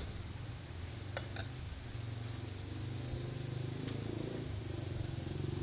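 A steady low background hum, with a few faint clicks and ticks as a plastic drinking-straw rose is handled and a metal tool presses into its folds.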